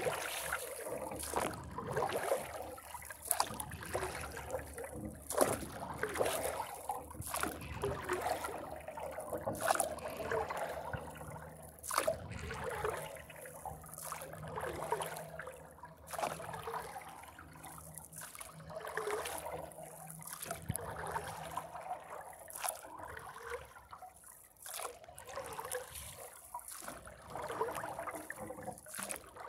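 Paddle strokes in lake water: the blade dipping and pulling, with splashing and trickling water that swells every second or two, and scattered sharp clicks.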